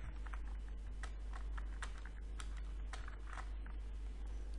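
Computer keyboard and mouse being used, keys tapped irregularly several times a second, over a steady low hum.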